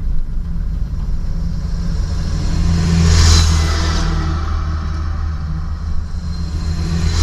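Car engine and road noise, a steady low rumble that swells about three seconds in.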